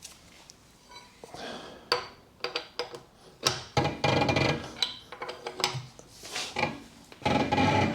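Metal hand tools working on a car wheel: scattered clinks and knocks, with two longer bouts of metallic rattling and scraping, one a few seconds in and one near the end.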